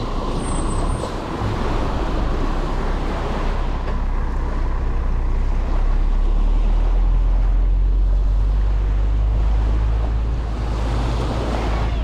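Heavy truck's diesel engine running with a steady low rumble that is loudest in the second half, over small waves washing onto the sand.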